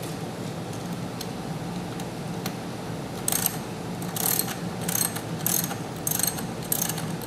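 Socket ratchet wrench clicking as it turns a bolt in the step's actuator linkage: a few faint clicks at first, then from about halfway about six short bursts of ratcheting roughly half a second apart.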